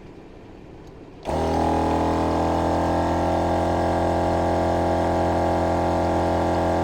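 Air compressor of a MORRflate tire inflation system switching on about a second in and running loudly and steadily with an even hum, pumping air into the Bronco's tires.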